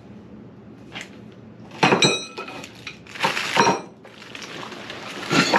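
Metal parts of a Rask radial arm saw kit clanking and rattling against each other as they are handled and set down, in several short bursts. The loudest burst, about two seconds in, leaves a brief metallic ring.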